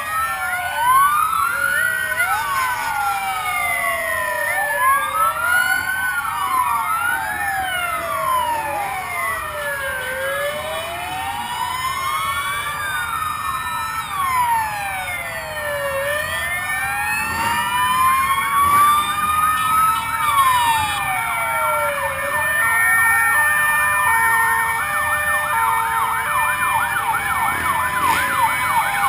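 Several sirens of passing fire-service trucks and ambulances sounding at once, their overlapping wails rising and falling. About two-thirds of the way through, a fast yelping siren joins in.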